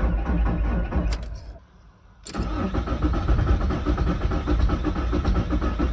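VW T4's five-cylinder diesel engine cranking on the starter without catching, heard from the cab, in an even pulsing rhythm. The cranking stops for under a second about a second and a half in, then resumes. It is a failed cold start, with only two of the five glow plugs renewed and a battery that is a little flat.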